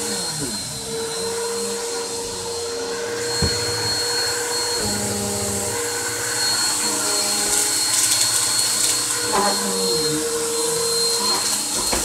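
Upright vacuum cleaner running steadily, its motor giving a constant high whine over a hum. There is a single knock about three and a half seconds in, and the pitch wavers briefly twice near the end.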